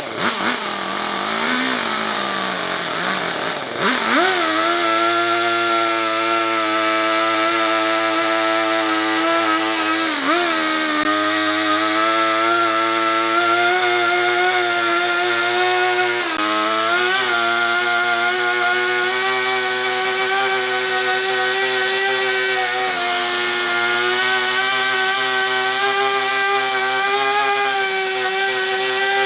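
Power tool motor running at high speed. It climbs in pitch over the first few seconds as it spins up, then holds steady with brief dips in pitch a couple of times as it bites into wood.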